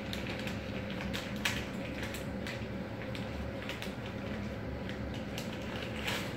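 Irregular light clicks, taps and scrapes of a toddler handling a spoon and pot while he plays at cooking, a little louder about one and a half seconds in and again near the end, over a steady low hum.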